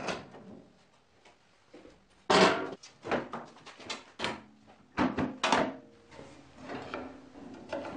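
Metal table saw stand with plywood side panels knocking and clattering as it is lifted out of a trailer bed and set down on a wooden base: a loud knock about two seconds in, a run of smaller knocks, then two more strong knocks about five seconds in.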